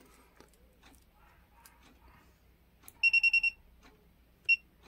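Hioki DT4261 digital multimeter's beeper giving a quick run of about six short high beeps about three seconds in, then one single beep, as the zero-ohm adjustment is set with the test leads shorted. Before that, faint scratching of the test lead tips being touched together.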